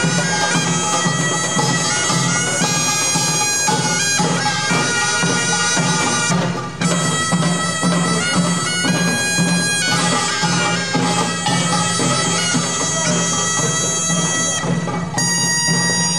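Korean pungmul farmers' band music: a taepyeongso shawm plays a loud, piercing melody of held notes over steadily beating janggu and buk drums. The sound briefly drops out about six and a half seconds in.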